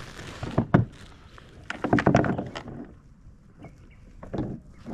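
Water splashing and knocks against the side of a plastic kayak hull, in short bursts: about half a second in, around two seconds in, and briefly near the end.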